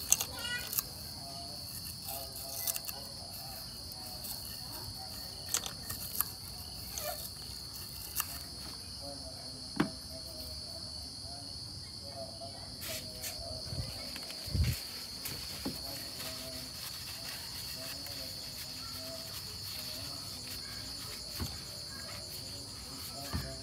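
Steady high-pitched chirring of insects, with scattered light clicks and a dull knock a little past halfway as engine parts around the throttle body are handled.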